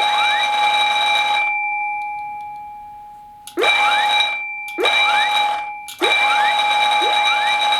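Electric fire alarm bell of an automatic fire alarm system ringing loudly and continuously. About one and a half seconds in it stops and rings down slowly, then starts again about two seconds later, breaks off twice more for a moment, and rings on.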